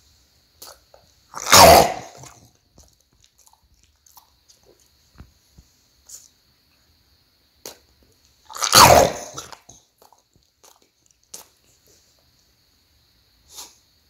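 English bulldog forcing out two loud, explosive bursts of breath about seven seconds apart, with faint snuffling clicks between them.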